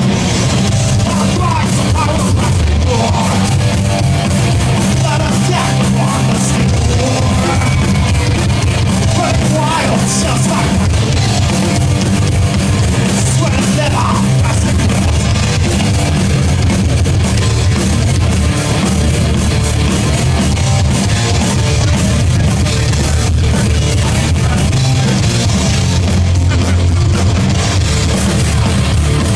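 Live thrash metal band playing at full volume: distorted electric guitar, electric bass and drum kit, steady and loud throughout.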